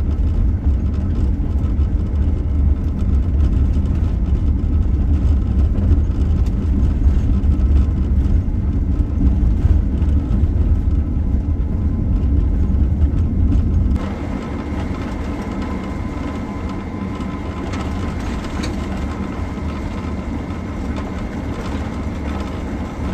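Road noise inside a Sprinter van's cabin while it drives on a gravel road: a steady low rumble of tyres and engine. About 14 seconds in the sound changes abruptly to a lighter rumble with a faint steady whine.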